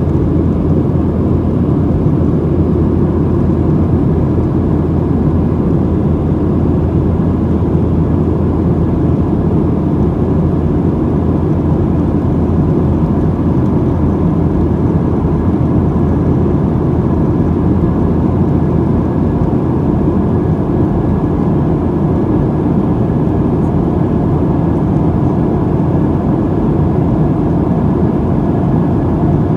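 Steady cabin drone of a Boeing 737-700 in flight, heard from a window seat: the CFM56-7B turbofan engines and the rush of air past the fuselage, with a few faint steady tones above a deep, even roar.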